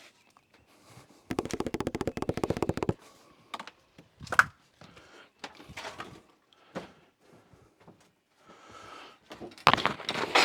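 Tools and a toolbox being handled: a fast run of even clicks lasting about a second and a half, then scattered separate knocks, and a louder clatter near the end.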